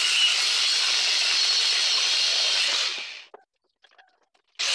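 Angle grinder with an abrasive cut-off disc cutting through a steel bicycle crank held in a vise: a steady high hiss that dies away about three seconds in.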